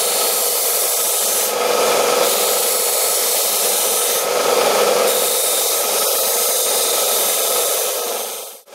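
Harbor Freight 1-inch belt sander running steadily with its 80-grit belt grinding the edge of a small red brass piece held against it by hand. The grinding hiss swells twice as the metal is pressed in harder, and the sound drops out sharply just before the end.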